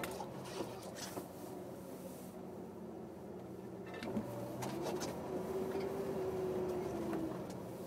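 Jeep engine running at low speed, heard from inside the cabin, with scattered knocks and clicks as the vehicle works over the rough trail. About halfway through, the engine note rises a little and gets louder, then settles near the end.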